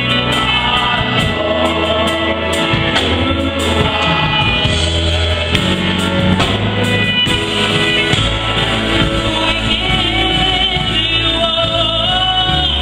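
A gospel choir singing in full voice over instrumental accompaniment, with a steady bass line and percussion hits underneath.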